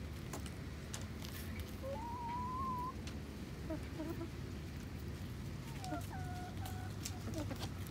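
Brown laying hens clucking and calling as they feed: one drawn-out, slightly rising call about two seconds in, then a few short clucks and a pair of higher held calls near the end. Scattered sharp taps of beaks pecking at food on the ground.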